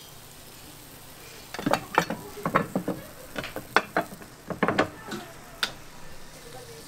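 A quick run of metal clanks and knocks, about a dozen over some four seconds, as the lids and handles of a row of cast-iron waffle irons are swung open and shut.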